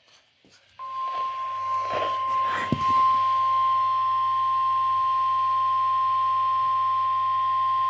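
NOAA Weather Radio warning alarm tone: a single steady high beep near 1050 Hz that comes on about a second in and holds, with a low hum underneath. It signals that a warning broadcast is about to follow. A few brief indistinct sounds come in over the start of the tone.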